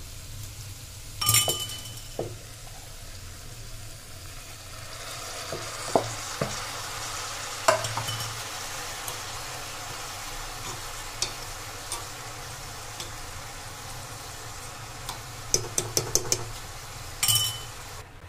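Rice pouring into a pressure cooker onto hot fried vegetables, which keep sizzling in the oil. A metal spoon spreads the rice, clinking and scraping against the cooker several times, with a quick run of clinks near the end.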